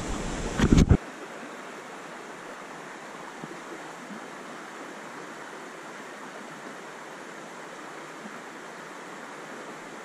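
Steady rush of a flowing stream running over a riffle. A loud burst of microphone handling noise for about the first second.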